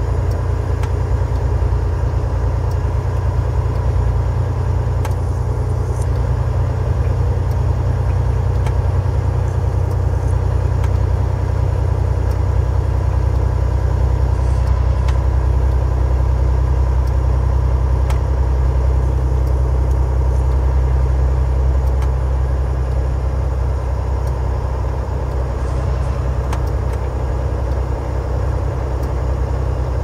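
Steady low drone inside a semi truck's cab at highway speed: the truck's engine running and its tyres on a snow-covered road, with a faint steady tone and a few faint clicks.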